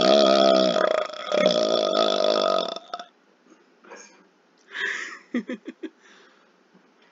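A man belching on purpose from swallowed air: one long, loud, low belch fades about a second in, and a second long belch follows at once, ending about three seconds in. After that come only a few faint short sounds.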